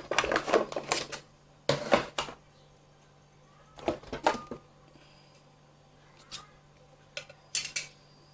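Handling noise of a machete and small objects being picked up and moved: several short bursts of clicking and clattering with pauses between them, over a faint steady low hum.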